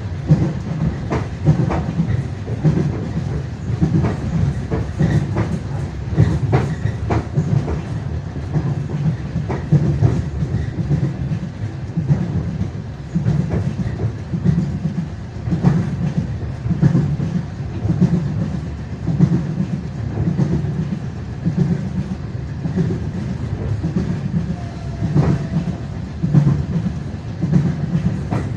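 Passenger train wheels running over rail joints, a steady rolling rumble with a repeating clickety-clack of knocks in pairs and groups. Heard from inside a moving passenger carriage.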